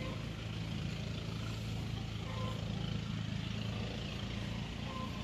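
Steady low drone of an engine running at an even speed.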